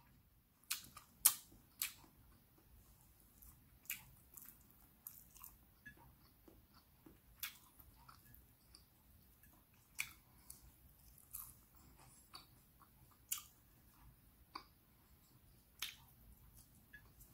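A person eating by hand, chewing a mouthful of rice and fried fish: quiet, irregular small clicks and smacks about once a second, a few sharper ones near the start.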